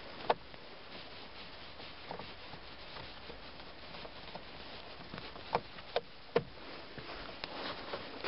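Scattered small clicks and taps of a Phillips screwdriver working screws out of a plastic dash cover, over a faint steady hiss: one click just after the start and a few louder ones about six seconds in.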